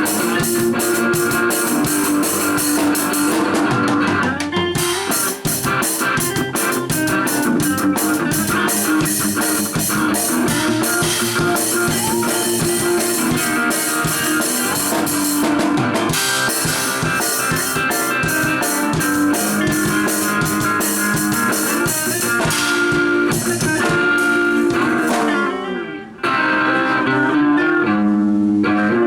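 Music: electric guitar with a drum kit, a bluesy rock groove with a steady beat, dropping out briefly near the end.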